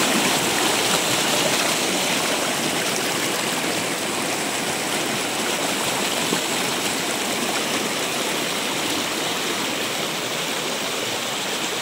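Shallow mountain river rushing over rocks and boulders in white-water rapids: a steady, even rush of water.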